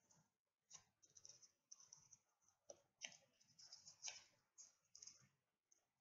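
Faint, scattered scratching and clicking of a pen writing on paper.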